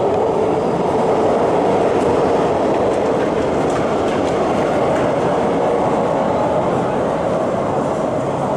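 MTR M-Train electric multiple unit running through an underground station platform without stopping: a loud, steady rumble of wheels and traction motors, with a hum that rises slowly in pitch.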